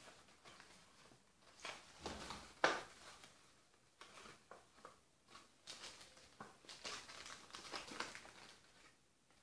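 Hands handling a small green cardstock favour box and clear plastic: scattered irregular rustles as the box is folded and filled, with one sharp click about two and a half seconds in.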